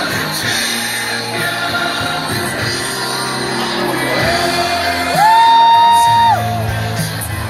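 Live rock concert: the band's music with singing and shouting from the crowd. About five seconds in, a loud sung note rises and is held for just over a second.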